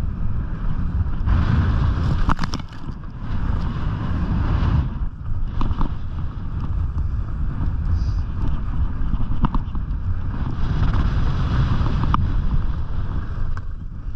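Wind buffeting the action camera's microphone as a skier glides downhill, with skis hissing and scraping over packed snow. The hiss swells in two stretches, about a second in and again past ten seconds, and there are a few short clicks.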